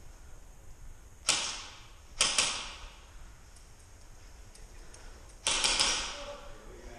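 Airsoft rifle firing: a single shot about a second in, a quick pair about a second later, then a short burst of three or four shots near the end, each ringing out briefly in a large empty hall.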